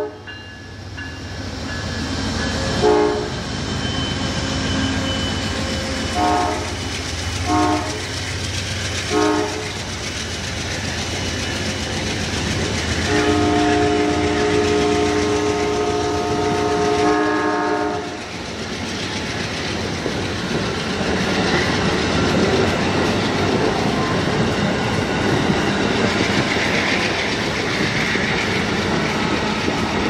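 Horn of an Amtrak P42DC diesel locomotive sounding four short blasts over about six seconds, then one long blast of about five seconds. After that come the steady rumble and wheel clatter of passenger cars rolling past.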